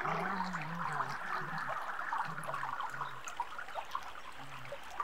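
Shallow water sloshing and trickling as dingoes wade through a waterhole, with a dense crackle of small splashes and a low wavering tone that comes and goes underneath.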